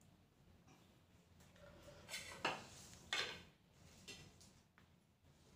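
Metal kitchen utensils clinking against dishes and a clay mortar: two louder clinks about two and three seconds in, then a few faint taps.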